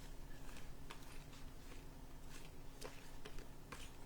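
Faint, scattered light clicks and rustles of trading cards being handled and flicked through, over a steady low hum.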